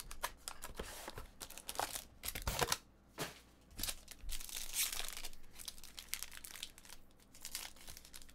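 Trading card box and pack wrappers being torn open and crinkled by hand: uneven rustling and ripping of paper and foil, with a longer rustle near the middle.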